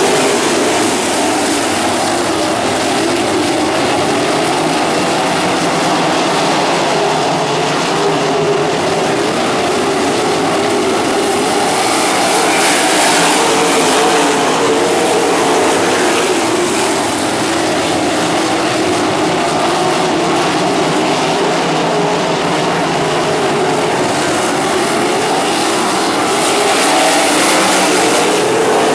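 A pack of sprint cars racing around a dirt oval: a steady, blended engine drone that swells a little as the cars pass and then eases off.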